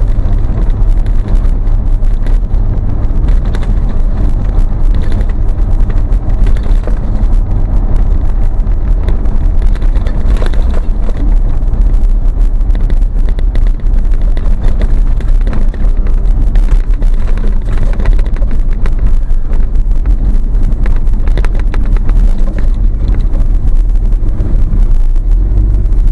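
Vehicle driving heard from inside the cab: a loud, steady low engine and exhaust rumble under road noise, with many small rattles and knocks.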